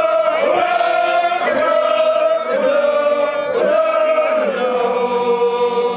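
Voices chanting in long held notes, about one a second, each note ending in a falling slide.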